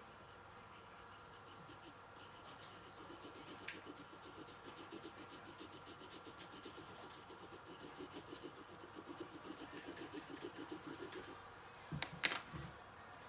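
Pencil scribbling on sketchbook paper in quick, even back-and-forth strokes, as when shading. Near the end the scribbling stops and a couple of sharp knocks follow as the pencil is set down on the wooden table.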